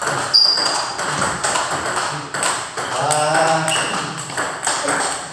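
Table tennis balls clicking off paddles and table tops in rallies at more than one table, with voices talking about three seconds in.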